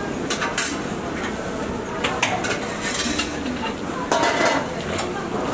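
Restaurant kitchen clatter: stainless-steel bowls and utensils clinking and clanking now and then over a steady background hiss.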